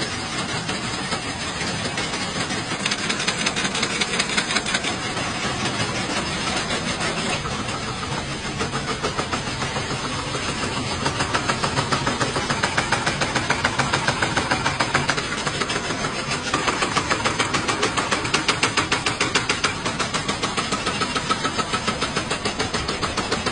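Rubber band cutting machine running, its blade slicing rubber tubing into rings with a fast, even mechanical clatter.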